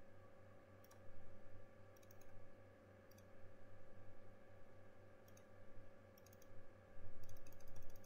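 Computer mouse clicking: single clicks about a second apart, then a quick run of clicks near the end, over a steady low electrical hum.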